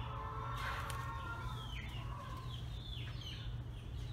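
Domestic chickens clucking, with short falling calls about once a second, over a steady low hum.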